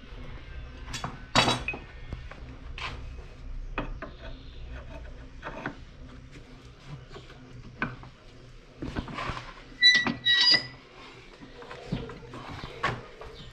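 Irregular clinks and knocks of metal tools and steel being handled on a workbench. Two ringing metallic strikes come close together about ten seconds in.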